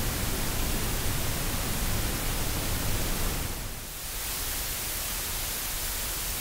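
Steady hiss of a condenser microphone's self-noise, which gives way about three and a half seconds in to the self-noise hiss of an audio recorder's preamplifier, a little quieter and thinner in the lower range.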